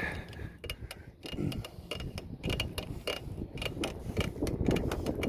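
Footsteps of a person walking on pavement: a steady run of light clicks and scuffs, a few per second, over a low rumble of wind on the microphone.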